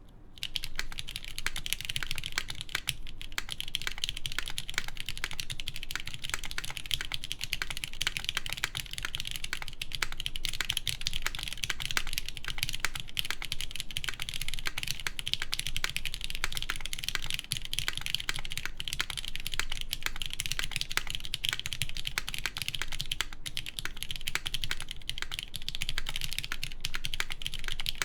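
Continuous fast typing on an LZ REs mechanical keyboard with lubed Cherry MX Black linear switches, a full aluminium plate and Cherry doubleshot keycaps. Many quick keystroke clacks run together, starting about half a second in.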